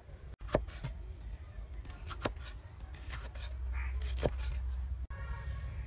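Steel cleaver chopping a green bell pepper on a wooden board: a few separate sharp knocks of the blade striking the wood, over a low rumble.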